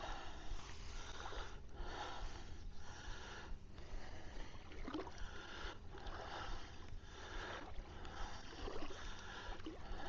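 Shallow water sloshing around legs as someone wades across a sand flat, in surges about once a second, one for each step.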